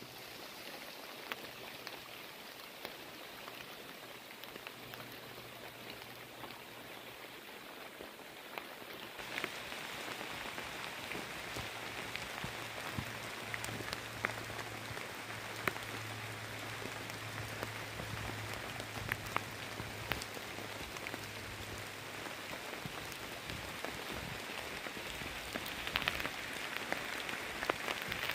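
Rain pattering steadily, with many sharp individual drops landing close by; it grows a little heavier about nine seconds in. A low steady hum runs under it for much of the time.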